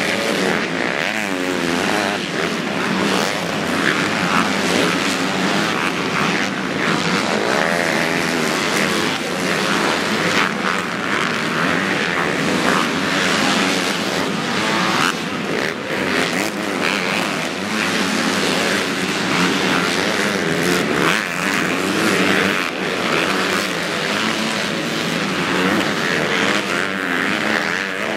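Motocross bikes racing on the track: several dirt-bike engines revving up and down, overlapping, their pitch rising and falling continually.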